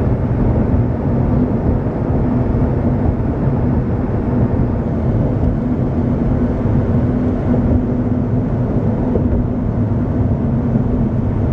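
Steady road and engine drone heard from inside a moving car's cabin, with a constant low hum.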